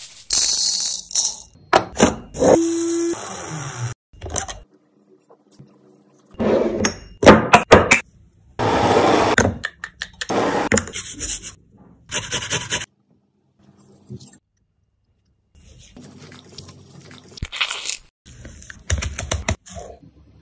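Spices being shaken and sprinkled over a raw whole chicken, in a string of short bursts of patter with knocks and scrapes from the spice containers, and a brief squeak about two and a half seconds in. Softer handling sounds follow in the second half, as gloved hands work the seasoning into the chicken.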